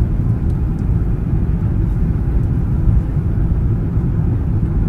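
Cabin noise of a Boeing 777-300ER airliner in flight: a steady low rumble of the engines and rushing air, heard from a window seat inside the cabin.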